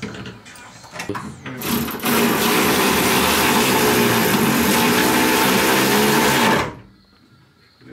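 Cordless power driver with a 10 mm socket running steadily for about five seconds on a bolt, starting about a second and a half in and then stopping. A few knocks of tool handling come before it.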